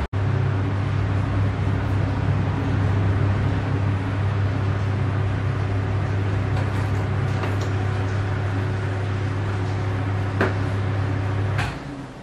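Panasonic FV-25TGU2 10-inch ceiling exhaust fan running steadily: a rush of air over a strong low motor hum. Near the end there is a click, the hum cuts off abruptly and the sound drops much quieter.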